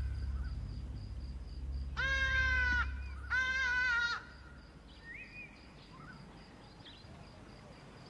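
Black eagle (Verreaux's eagle) calling twice, two drawn-out, slightly wavering calls each just under a second long, the second following about half a second after the first; after them only faint background with a small bird's brief chirp.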